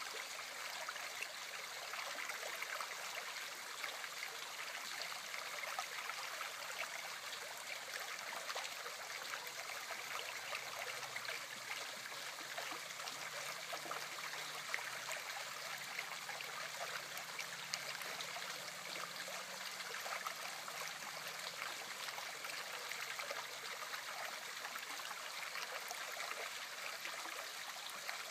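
River current rippling and splashing steadily around a submerged fallen branch: an even, unbroken rush of water.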